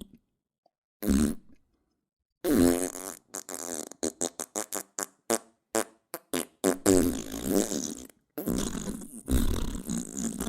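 Fart sound effects: a short fart about a second in, then a long sputtering fart of rapid pops lasting several seconds, and after a brief break another long one near the end.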